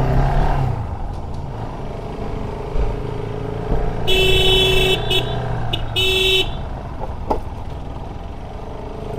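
Vehicle horn honking over steady engine and road noise: a blast of about a second roughly four seconds in, a short blip, then a shorter blast about six seconds in.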